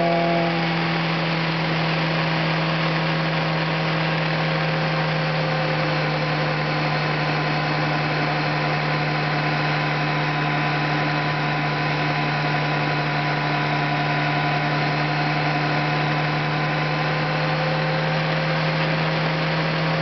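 Motorcycle engine running at a steady cruising speed under heavy wind and road noise. The engine note drops slightly about a second in, then holds steady, rising a little near the end.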